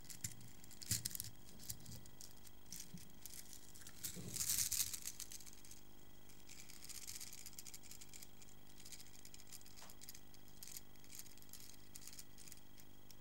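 Faint scattered clicks and rustling of objects being handled, with a louder rustle about four seconds in.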